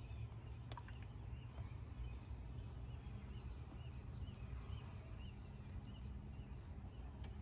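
Faint outdoor ambience: small birds chirping in quick repeated notes over a low steady rumble.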